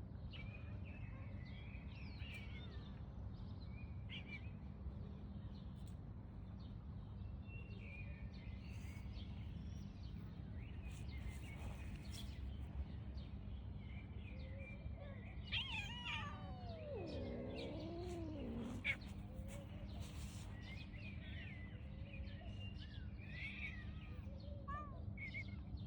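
A domestic cat gives one long, drawn-out meow about halfway through, falling in pitch and wavering at the end. Small birds chirp intermittently over a steady low background rumble.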